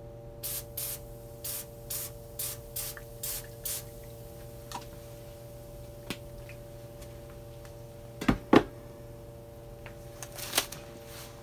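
Aerosol can of Easy-Off oven cleaner sprayed in about eight short hissing bursts over the first four seconds. Two loud knocks follow a little after eight seconds.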